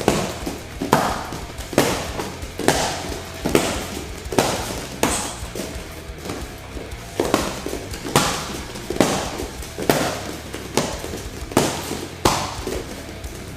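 Punches and kicks smacking into held strike pads, sharp slaps nearly one a second with a pause of about two seconds midway, over background music.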